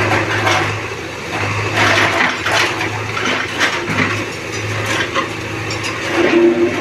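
JCB backhoe loader's diesel engine running with a low pulsing hum, under repeated bursts of rushing, crackling noise. A brief steady two-note tone sounds near the end.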